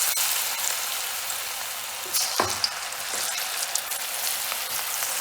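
Raw banana and gram-flour pakoda batter sizzling and crackling as it deep-fries in hot oil, with a single sharp tap about two and a half seconds in.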